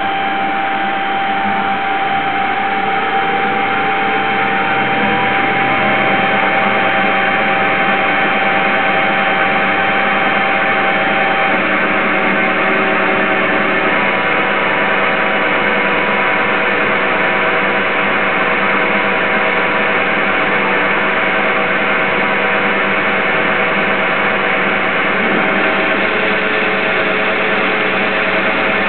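CNC Myford S7 lathe running under program, turning a metal spindle nose blank with a carbide insert tool. It is a steady, loud motor and drive whine with several held tones. One tone glides upward a few seconds in, and the tones shift in pitch again partway through and near the end as the tool's feed changes.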